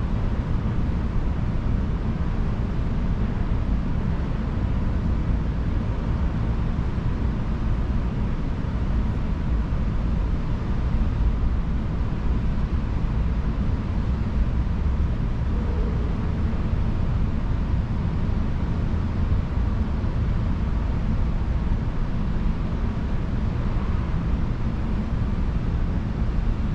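Steady low rumbling outdoor background noise, even and unbroken, with no distinct events.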